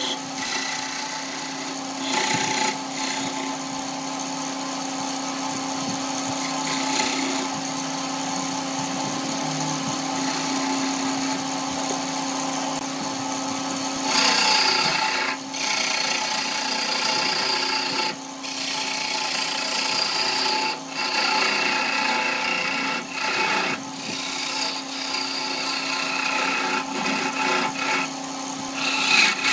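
Wood lathe running with a steady motor hum while a hand-held turning tool cuts the spinning wood: a continuous scraping cut that breaks off briefly every few seconds as the tool is lifted. The cutting grows louder about halfway through.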